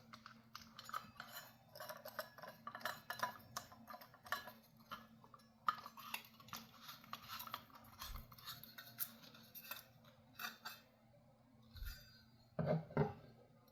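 Hands fitting nuts and bolts into a 3D-printed lapidary arbor: a faint run of small clicks and scrapes of metal hardware against plastic, then a couple of louder knocks near the end.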